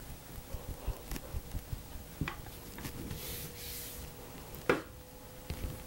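Steel rolling pin rolling out a sheet of fondant on a silicone mat: soft taps and rubbing, with one sharper knock a little before the end, over a faint steady hum.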